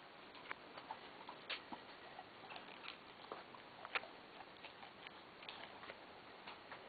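Faint, irregular small clicks and ticks over a steady low hiss, the sharpest about four seconds in.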